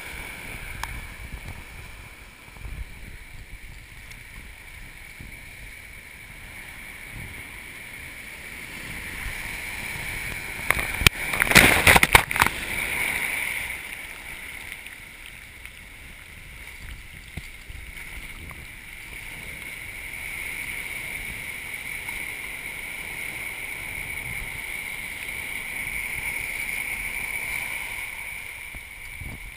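Surf breaking and washing over a rock at the waterline, with water rushing and splashing right against the camera. There is a loud burst of splashing and knocks about eleven to twelve seconds in.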